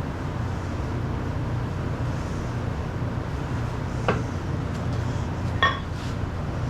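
Two sharp metallic clinks with a short ring, about a second and a half apart, the second louder, as steel hydraulic cylinder parts are handled and set down, over a steady low hum.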